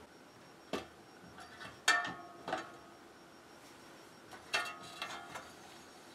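Scattered metal clinks and knocks, several ringing briefly, from a steel equipment rack with slide rails being handled. They come in two groups: three in the first couple of seconds, then a cluster about four and a half seconds in.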